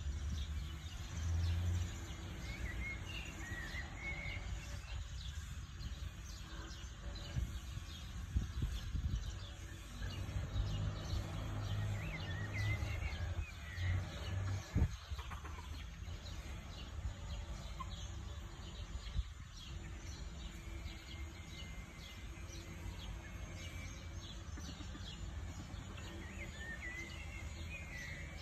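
Short wavering bird calls, heard a few times over a steady low rumble, with a single sharp knock about halfway through.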